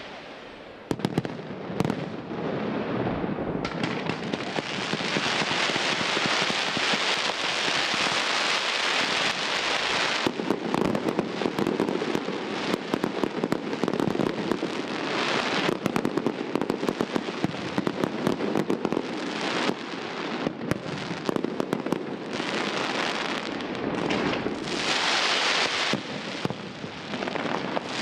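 Pirotecnia Vulcano fireworks display: dense, continuous crackling from gold crackling effects, packed with sharp pops. It starts about a second in and grows fuller about four seconds in, with brief lulls now and then.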